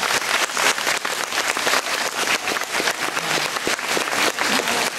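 Audience applauding: many people clapping steadily and densely together.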